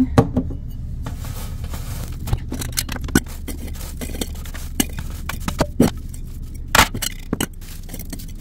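Dry, crisp freeze-dried chicken pieces being scraped off a metal sheet pan and dropped into a glass jar: a string of scrapes, light crunches and clinks, with a louder knock near seven seconds in.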